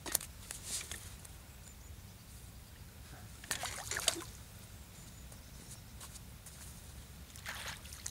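A small roach thrown back into a river, landing with a splash about three and a half seconds in, followed by light splashing of water at the bank's edge near the end.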